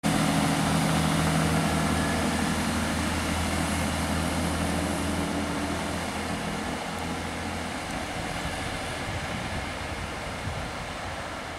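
Class 158 diesel multiple unit pulling away: a steady diesel engine drone with its running noise, gradually fading as the train draws off down the line.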